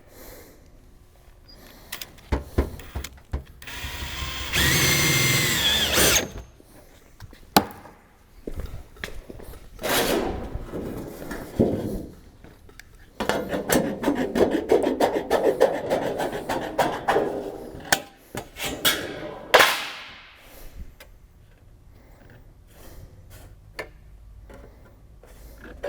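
Power drill driving screws to fasten sheet-metal flashing: a short run about four seconds in and a longer, rougher run past the middle, with clicks and knocks of the metal being handled between them.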